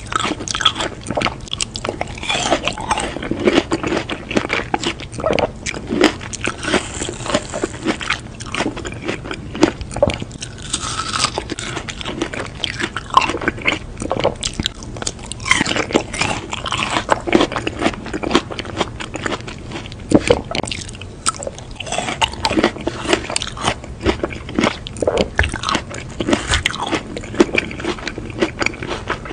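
Close-miked eating sounds: bites and chewing of soft green fruit balls, a continuous run of small crunches and mouth clicks.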